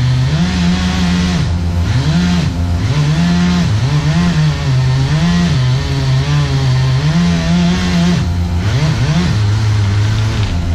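Chainsaw engine running, its pitch rising and falling over and over as the throttle is opened and let off.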